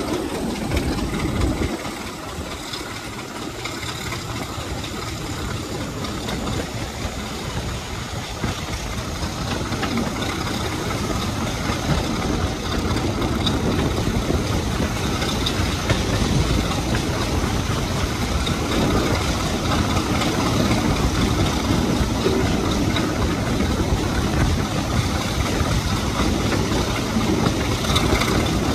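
Class 33 diesel-electric locomotive's Sulzer eight-cylinder engine running under way, heard from outside the cab window. The sound grows louder over the first several seconds, then holds steady.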